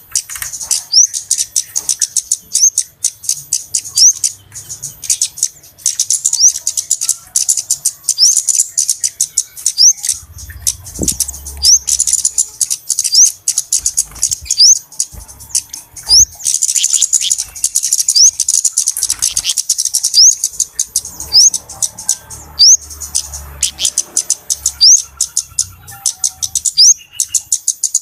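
Flowerpeckers (kemade / cabe-cabean) calling busily in a lure recording: a dense, continuous stream of high, sharp ticking chirps, with short rising notes repeated every second or two.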